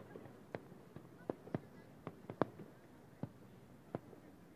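Distant aerial fireworks bursting about 1 km away: about eight sharp bangs at irregular intervals, some in quick pairs, over a faint steady background.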